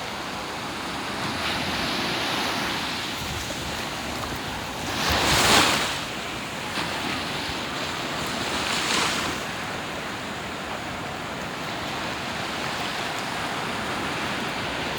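Ocean waves washing ashore in a steady wash, with a wave breaking loudest about five seconds in and a smaller one about nine seconds in.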